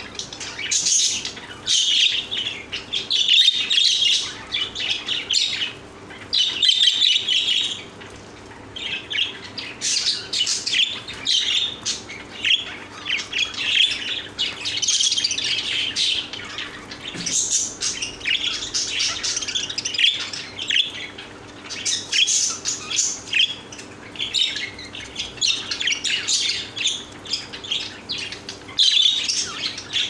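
A flock of caged budgerigars chirping and warbling, a dense stream of quick high chirps with a couple of brief lulls.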